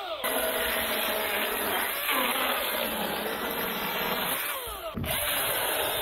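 Milwaukee M18 Fuel battery chainsaw cutting logs to length, its motor falling in pitch as it winds down shortly before five seconds in.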